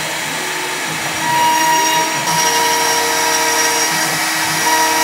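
CNC router spindle running at speed with its end mill cutting into a wood board: a steady high whine over the rasp of the bit through the wood.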